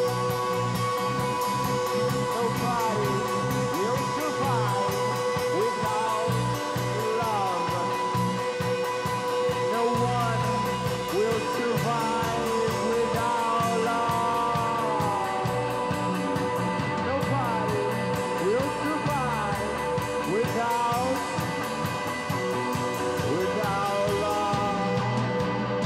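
A rock band playing live: electric guitar with bending, gliding notes and held tones over bass and drums, with fast, steady cymbal ticks.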